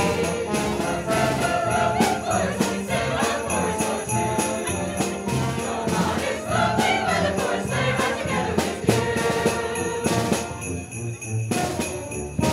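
Holiday music with sleigh bells jingling in steady rhythm over a pitched melody.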